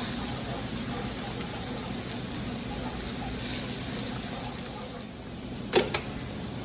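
A butter-and-flour roux with garlic and capers sizzling steadily in a pan as the flour cooks down, with one sharp knock near the end.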